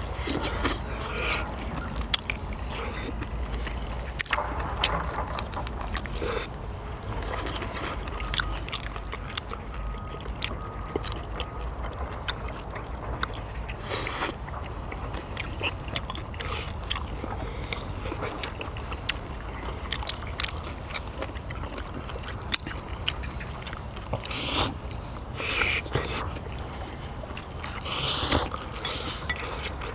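People eating: chewing and biting with many small clicks of utensils against dishes, and a few louder short rushes of sound, likely slurps of noodles, over a steady low rumble.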